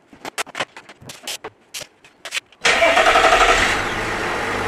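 A run of sharp clicks and knocks as the plastic intake housing and tube are fitted into place. About two and a half seconds in, the truck's 3.0-litre Duramax inline-six turbodiesel starts with a loud burst and settles into a steady idle.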